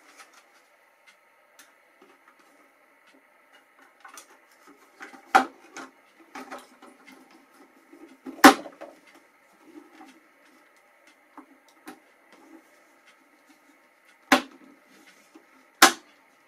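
The plastic side cover of a Chinon Sound 8000 Super 8 projector being handled and fitted back over the lamp housing: four sharp clacks, the loudest about eight and a half seconds in, with softer rubbing and knocking between them.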